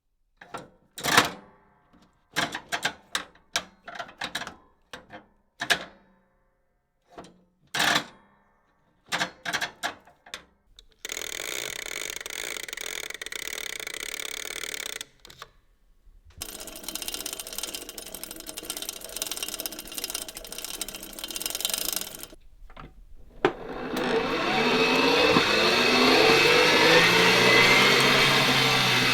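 Small mechanical objects handled one after another: sharp separate clicks and clacks for the first ten seconds, then steady whirring, and from near the end a louder motor-like whir whose pitch slides up and down.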